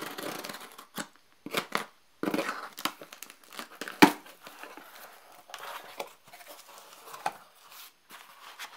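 Packing tape and a plastic packing-slip pouch being torn and peeled off a cardboard shipping box, with irregular crinkling and rustling. One sharp click about four seconds in, then cardboard flaps rustling as the box is opened.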